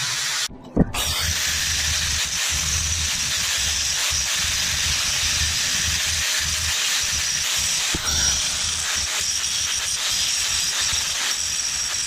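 Angle grinder with a flap disc grinding a steel bracket clamped in a vise, a steady hiss. Near the start a band saw cutting steel plate breaks off, followed by a sharp click.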